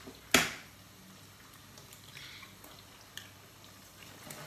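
One sharp clack of kitchenware about a third of a second in, with a brief ring. Then a few faint clicks of cooking utensils over a low kitchen hiss.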